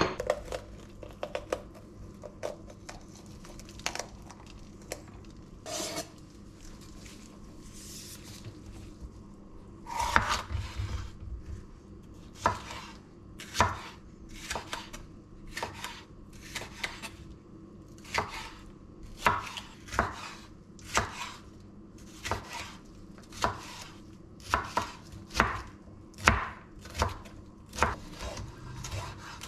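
Chef's knife cutting a green bell pepper on a bamboo cutting board: scattered light clicks and knocks at first, then, from about a third of the way in, steady chopping with the blade knocking on the wood about once a second.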